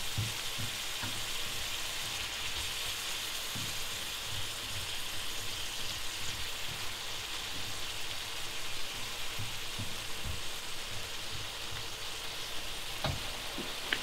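Stir-fry filling of chicken, bacon and vegetables in soy sauce sizzling steadily in a hot pan, with irregular soft knocks of the spatula stirring it. The filling is just starting to soften.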